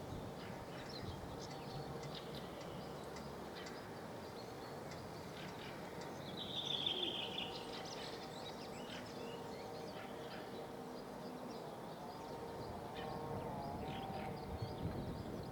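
Steady faint outdoor background noise with scattered bird calls, the clearest a short falling chirp about seven seconds in.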